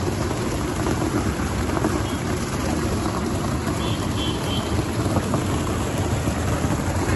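Hot tub jets and a sheer waterfall spout running together: steady churning, bubbling water with a low rushing rumble.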